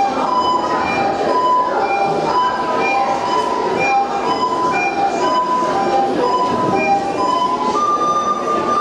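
Soprano recorder playing a simple melody of short, clear held notes, one after another, over a steady noisy background; a higher note is held longer near the end.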